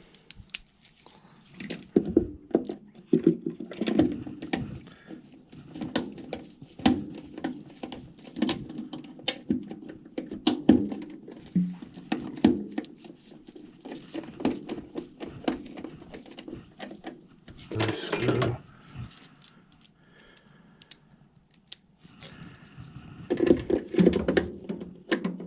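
Frequent small knocks, clicks and rattles of hand tools and screws against the furnace's sheet-metal parts as screws are fitted by hand.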